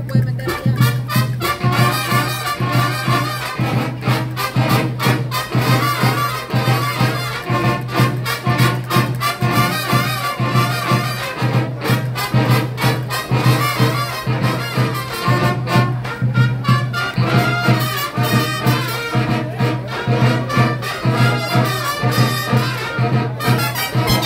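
A marching band playing a lively tune, brass over a steady drum beat.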